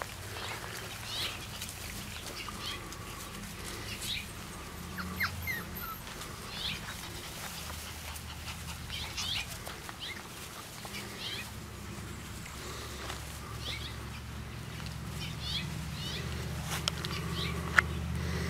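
Puppies playing and tussling in grass, giving short high squeaks and yips scattered throughout, over a low steady hum.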